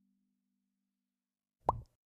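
A short cartoon 'bloop' sound effect near the end: a single quick pop that glides sharply upward in pitch. Before it, the last low held note of the background music fades to silence.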